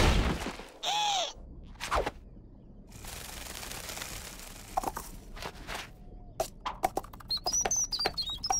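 Cartoon sound effects: a loud impact at the start, a short whistle that rises and falls about a second in, then a faint background hiss. Near the end comes a quick run of light clicks with high chirps over them.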